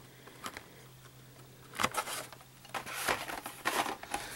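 Hot Wheels blister-pack cards being handled and shuffled. Scattered clicks about two seconds in give way to a run of plastic crinkling and card rustling, over a faint steady hum.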